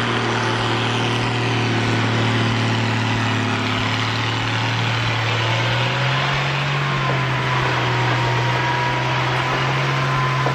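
A heavy engine, most likely the Lull telehandler loader's diesel, running steadily at a low speed. Its pitch steps up slightly about six seconds in.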